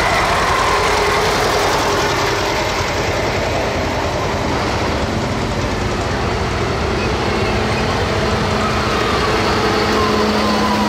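A vintage tractor's engine running as it drives slowly past, followed by a modern John Deere tractor's diesel engine coming closer and passing, its steady hum growing in the second half.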